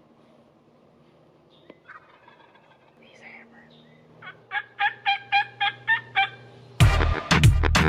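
A run of about eight short, evenly spaced turkey yelps, roughly four a second. Near the end, loud music with a hard beat cuts in.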